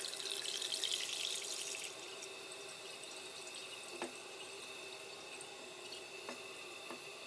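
Toilet tank refilling through its fill valve after the water is turned back on: a steady rush of water, louder for the first couple of seconds and then a quieter, even hiss, with one light knock about four seconds in. The flush valve has a freshly sealed seat and the old flapper is back on, so the tank is being tested for holding water.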